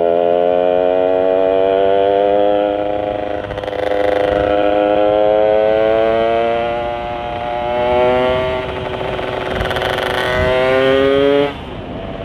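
Yamaha Sigma two-stroke motorcycle engine, fitted with a UMA 30 mm carburettor and Vforce4 reed manifold, pulling up in pitch in long climbs that drop back twice and then cut off sharply near the end as the throttle shuts. The rider judges the mixture still a little lean.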